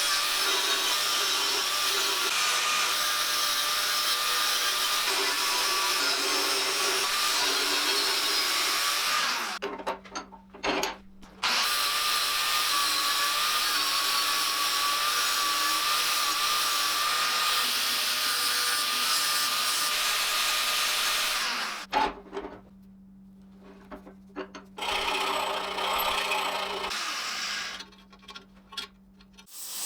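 Electric power tool grinding steel, with a steady, slightly wavering whine. It stops briefly three times, leaving only a low hum.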